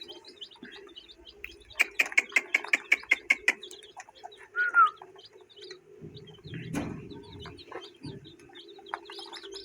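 Many small birds chirping, with a quick run of sharp chirps about two seconds in and one loud, falling call near the middle, over a steady low hum.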